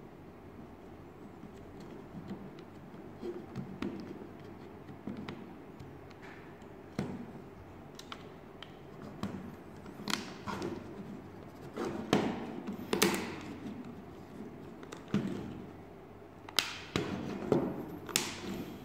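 Laser-cut plywood model-kit parts being handled and pressed together by hand: irregular light wooden clicks and taps, sparse at first and coming more often and louder in the second half.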